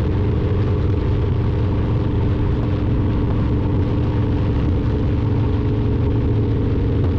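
Motorcycle engine running steadily at cruising speed while riding, with rushing wind noise.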